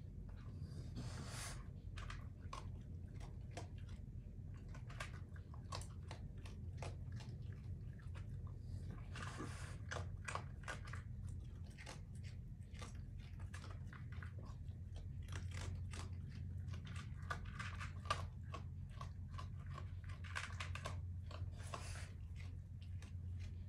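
Raccoons crunching and chewing dry pellet food from a plastic dish, a steady run of small irregular crunches and clicks, over a steady low hum.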